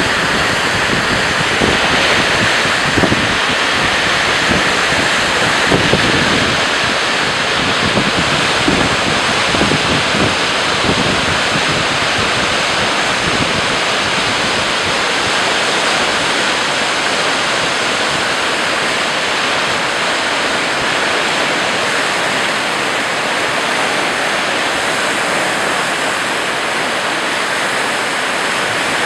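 Mississippi River floodwater rushing and churning through the open gated bays of a concrete flood-control spillway, making a loud, steady rush of white water. Wind buffets the microphone in roughly the first ten seconds.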